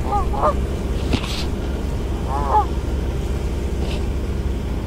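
Canada geese honking: a quick pair of calls at the start and another honk about two and a half seconds in, over a steady low rumble.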